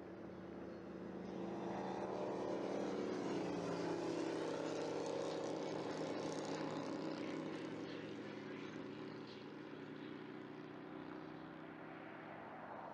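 Propeller airplane engine passing by at takeoff power, its sound swelling to a peak a few seconds in and then slowly fading.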